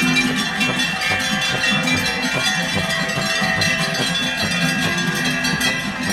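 Many large cowbells hung on a herd of walking cattle clanging together, a dense, continuous jangle of ringing strikes.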